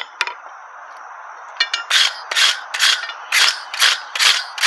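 Hand wire brush scrubbing a forged steel bar on the anvil, starting about two seconds in, with about two strokes a second. A couple of sharp metallic clinks near the start.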